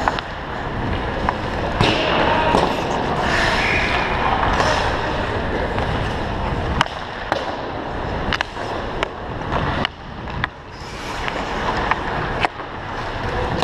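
Ice hockey skates gliding and scraping on the rink ice, with a continuous rushing noise from skating past the camera. Several sharp clacks of sticks hitting pucks break through.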